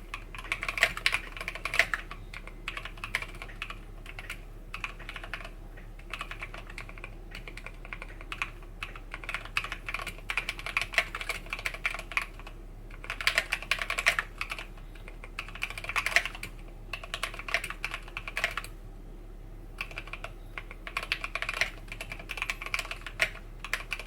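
Typing on a Drop Tokyo60 60% mechanical keyboard fitted with Gateron G Pro Yellow linear switches: quick runs of keystrokes in bursts, broken by short pauses, over a steady low hum.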